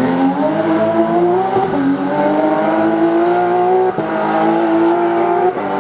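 Porsche GT3 rally car's flat-six engine pulling hard under acceleration, its pitch climbing steadily. The pitch drops once about two seconds in as it shifts up, breaks briefly about four seconds in, and falls off just before the end.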